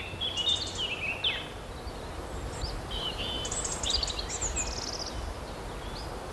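Small songbirds singing outdoors: quick chirps, slurred notes and rapid trills, in a burst at the start and another about three seconds in, over a low steady rumble.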